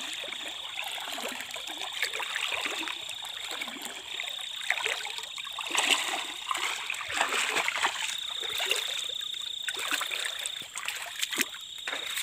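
Water splashing and sloshing around the legs of a person wading through shallow water, in irregular strokes.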